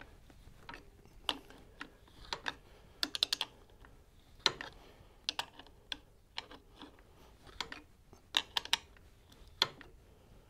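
Irregular metal clicks of a wrench fitting and turning on the threaded nut of a homemade clutch spring compressor, some in quick little clusters, as the Sportster's clutch diaphragm spring is cranked down.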